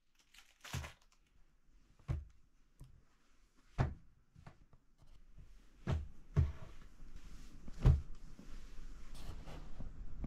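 About six soft knocks and thumps with light rustling between them, as hands handle folded pyjamas, towels and a bag on a small wooden shelf. The loudest knock comes about three quarters of the way through.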